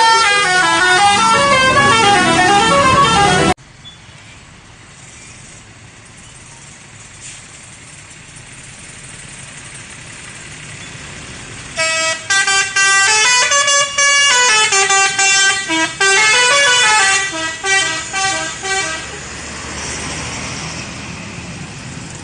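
Telolet musical horn of the bus SCH 716 playing a multi-note tune of stepping tones, which cuts off suddenly about three and a half seconds in. After several seconds of quieter street noise it plays another tune for about seven seconds, then tails off.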